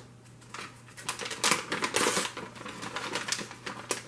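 Plastic snack pouch crinkling and rustling in irregular crackles as it is handled and opened to take out a cluster, busiest about one and a half to two seconds in.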